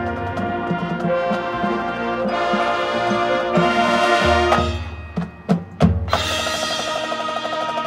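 High school marching band playing live: sustained brass chords swell, then a few sharp percussion hits come about five seconds in before the full band returns with a loud chord.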